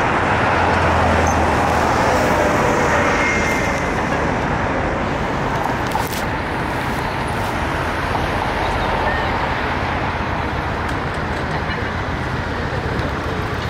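Busy city road traffic: cars and a bus driving past, a steady rumble with a low engine hum in the first few seconds and a brief knock about six seconds in.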